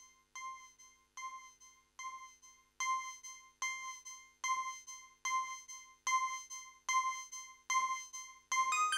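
Synthesized electric-piano-like tone repeating a single note about every 0.8 seconds, generated live by Elixir code sending MIDI events to Renoise. The notes get louder about three seconds in, as the code's volume value is edited. Near the end the pattern switches to a quick run of notes at changing pitches, the new note list taking effect on hot code reload.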